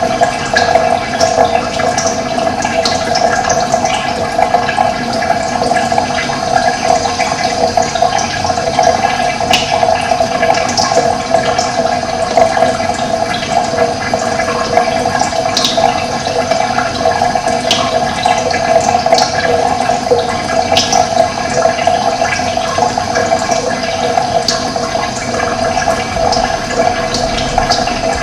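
Running water flowing steadily, with brief high bird chirps scattered throughout.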